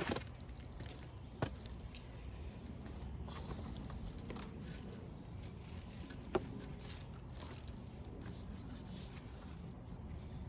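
Crunching and scraping in soil, with three sharp clicks, as curved rebar J-hook stakes are handled and pushed into the ground to anchor plastic slope containers.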